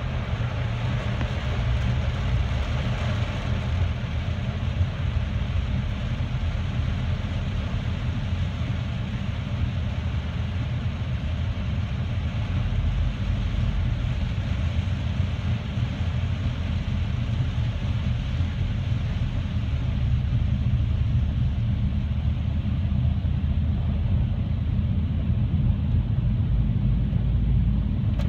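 Car driving, heard from inside the cabin: a steady low engine and road rumble with an even hiss of tyre and road noise.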